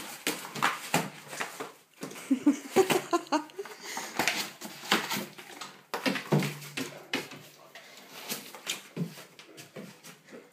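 Great Dane tearing and chewing a cardboard box: an irregular run of quick rips, crackles and knocks from the cardboard.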